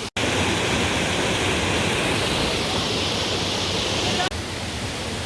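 Steady rushing of a waterfall, a loud even roar of falling water that drops somewhat in level about four seconds in.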